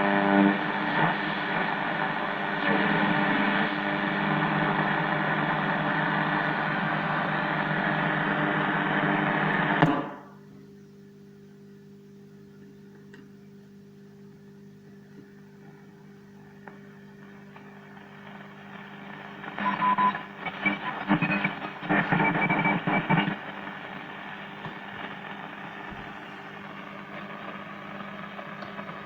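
Zenith 5S-29 tube radio playing through its loudspeaker: a loud station full of steady whistling tones cuts off abruptly about ten seconds in. A low steady hum is left, and from about two-thirds of the way through, faint crackling signals come and go.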